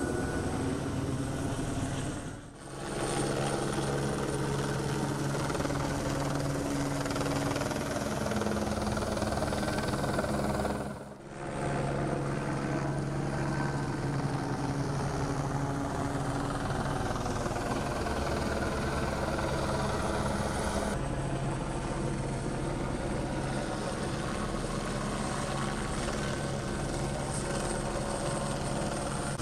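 Sheriff's helicopter circling overhead, a steady drone of rotor and engine. It briefly drops out twice.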